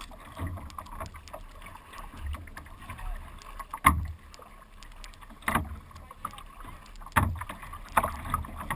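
Water lapping and sloshing against the hull of a carbon surf ski in small chop, with four sharp slaps over the last half.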